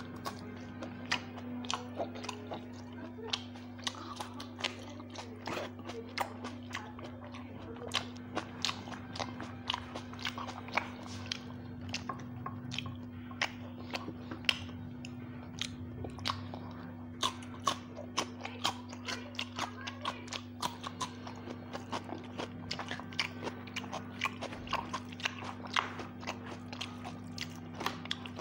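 Close chewing and biting of a hand-eaten rice meal with vegetables, picked up by a clip-on microphone on the shirt: a steady run of wet mouth clicks and crunches, several a second.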